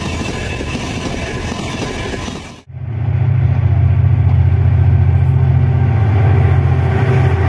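Passenger coaches rolling past on the rails with a steady wheel-on-rail noise. After an abrupt cut, a diesel locomotive approaches with its engine running loud and steady in a deep low tone.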